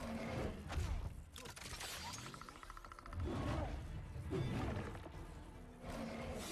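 Action-film fight soundtrack: several sudden crashing, shattering impacts and whooshes over music, with bending vocal-like cries in between.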